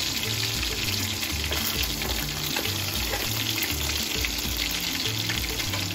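Soya chunks frying in hot oil in a pan, a steady crackling sizzle, over background music with a low bass line.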